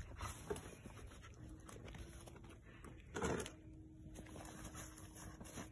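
Faint crunching and rustling of snow as a dog rolls and shoves its face through it, with a louder brief noise about three seconds in.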